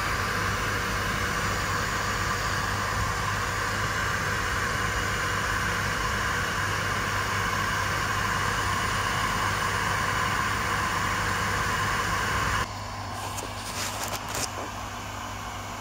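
Crompton Greaves 1 HP single-phase centrifugal monoset water pump running steadily, a mains-frequency electric motor hum under a rushing noise. About thirteen seconds in the sound drops quieter, and a few short clicks and knocks follow.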